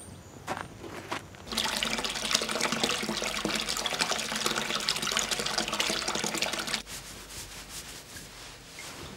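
Water running into a bathtub for about five seconds, then cutting off suddenly; a few short knocks come before it.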